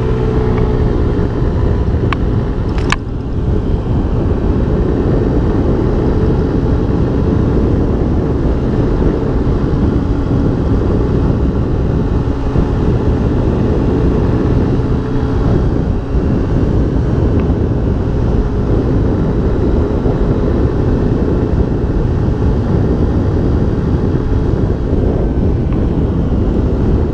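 Honda Ruckus scooter's 49cc single-cylinder four-stroke engine running steadily while riding at speed, under a heavy wind rumble on the microphone. There is one short click about three seconds in.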